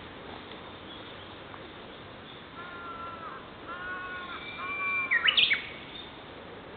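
Japanese bush warbler singing its hoo-hokekyo song. A few low whistled notes begin a little before halfway, lead into a long held whistle, and end in a quick, loud upward flourish near the end.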